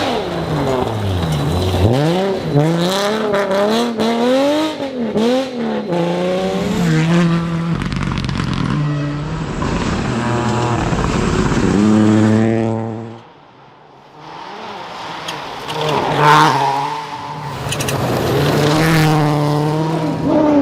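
Rally car engines revving hard through gear changes, the pitch swinging rapidly up and down and then climbing in steps. The sound drops away briefly about two-thirds through before the engine returns.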